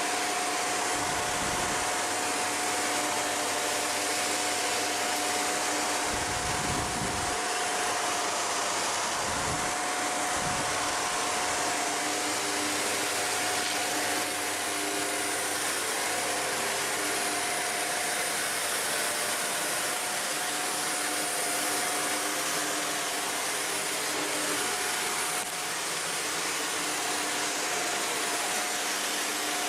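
Shark NZ850UKT upright vacuum cleaner running steadily at minimum suction, its motor giving an even rushing hiss with a constant whine. A few short low bumps come in the first ten seconds or so.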